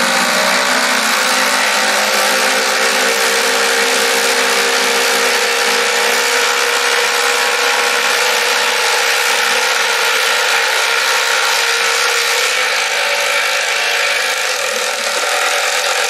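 Two cordless impact drivers, a RYOBI and a HART, running together and hammering long screws into a wooden board in a steady, loud rattle. The RYOBI finishes and stops a couple of seconds before the end, leaving the HART still driving.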